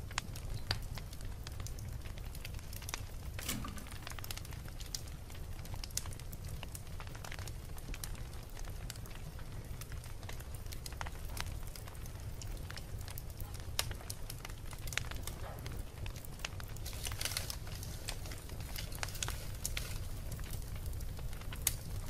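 Wood logs burning in a fireplace: a steady low sound from the flames with scattered sharp crackles and pops throughout, and a brief flurry of crackles about 17 seconds in.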